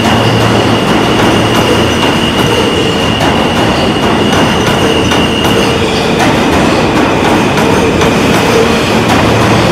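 New York City subway train departing past close by: a steady loud rumble of steel wheels on rail with repeated clicks over the rail joints. Over it runs a steady high whine that drops slightly in pitch about six seconds in.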